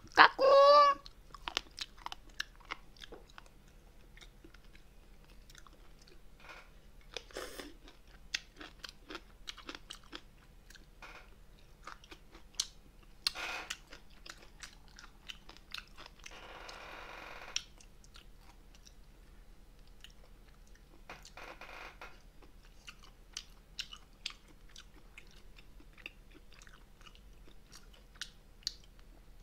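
Close-miked chewing and biting of spicy braised monkfish and bean sprouts, with many small clicks and crunches from mouth and chopsticks, and a few short hissing patches, one lasting about a second. A brief wavering pitched sound right at the start is the loudest thing.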